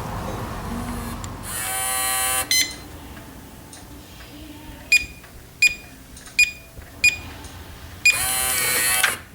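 Keyless electronic keypad deadbolt in use. Its small motor buzzes for about a second driving the bolt and ends with a click. Four short keypad beeps follow as a code is tapped in, and near the end the motor buzzes again for about a second, moving the bolt.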